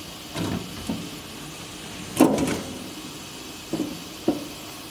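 Cover panel on a CNC router's base being handled and fitted back into place: a handful of short knocks and rattles, the loudest about two seconds in.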